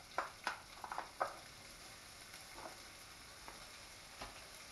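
Diced ham sizzling faintly in a little hot oil in a frying pan, with a few short clicks in the first second or so as the pieces are tipped in.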